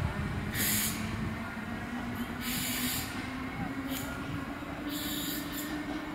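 Class 8100/8300 DART electric multiple unit pulling away, its low motor whine rising slowly in pitch as it accelerates. Several short bursts of hiss come and go over it.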